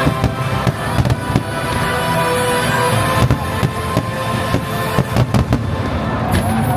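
Aerial fireworks bursting, with many sharp bangs and crackles, a rapid cluster of them about five seconds in, over the show's musical soundtrack.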